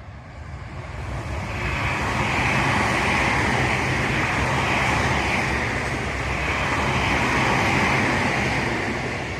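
Tobu Tojo Line electric train passing at speed: a steady rush of wheels on the rails over a low rumble, building over the first two seconds, holding, then falling away at the end.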